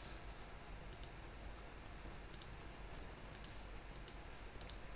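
Faint, irregular clicks of a computer mouse, about a dozen scattered through, over a steady low hum.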